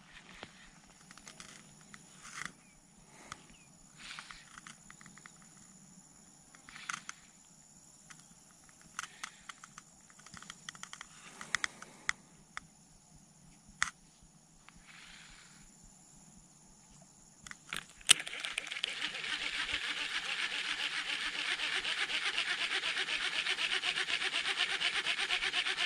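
Baitcasting reel being cranked, a fast, even, rough grinding rasp that comes from the bearing in the reel's spool tension knob. It starts after a sharp click about two-thirds of the way through; before that there are only scattered light clicks.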